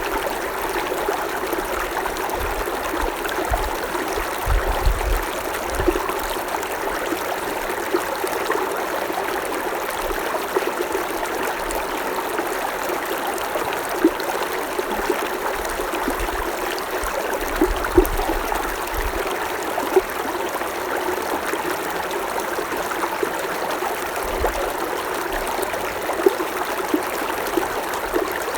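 Creek water running steadily over rocks, a continuous babbling rush with frequent small splashes and trickles.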